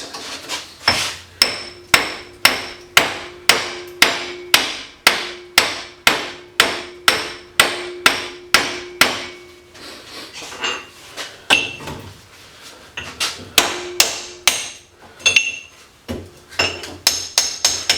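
Hammer blows on a steel lighting transformer held in a vise, pounding it apart to free the copper windings. A steady run of about two sharp strikes a second comes with a ringing metallic note; about halfway through it gives way to slower, irregular blows, then a quick flurry near the end.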